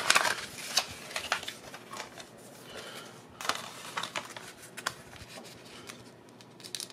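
Plastic Blu-ray case being handled and opened: a flurry of clicks and rustles in the first second or so, then scattered clicks and taps.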